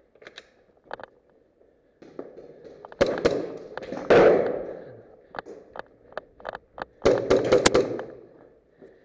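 Airsoft pistol shots in a bare concrete building: scattered sharp cracks, with two loud flurries of rapid shots mixed with rustling movement noise about three and seven seconds in.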